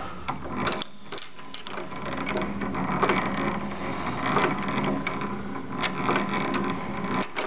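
Valve linkage and hit-and-miss latch-out of a 1902 Globe Iron Works 8 HP engine clattering steadily with repeated sharp clicks as the engine turns over.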